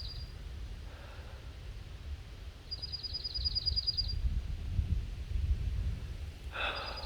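Wind buffeting the microphone as an uneven low rumble, while a small bird sings a short, high, rapid trill twice.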